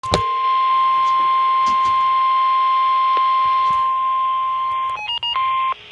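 NOAA Weather Radio's 1050 Hz warning alarm tone, a single steady high beep held for about five seconds, followed near the end by a quick run of short beeps at changing pitches.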